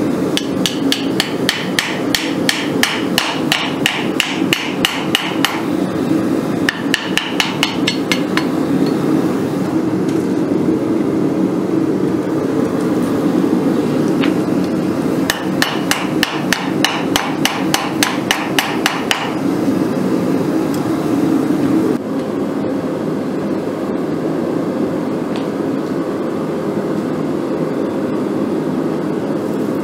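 Hand hammer striking steel on an anvil in three quick, even runs of blows, about a second in, around seven seconds in and around fifteen seconds in, over a steady rushing noise that goes on alone after the hammering stops.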